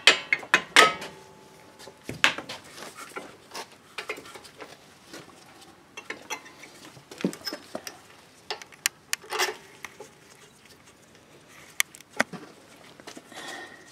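Scattered metallic clinks, taps and knocks of a brake caliper and its hardware being handled and fitted over a rear disc brake rotor, a few of them ringing briefly. The loudest clanks come in the first second.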